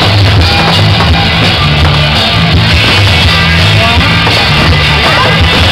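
Loud rock music with a heavy, changing bass line, played over a stadium's loudspeakers to accompany a fireworks show; the recording is harsh and distorted from the volume.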